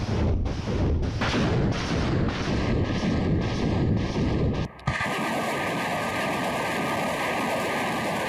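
BM-21 Grad multiple rocket launcher firing a salvo: rockets leave the tubes one after another, about two a second, each launch a sharp blast over a continuous heavy roar. After a brief break about five seconds in comes a steadier rushing noise of the salvo heard from further off.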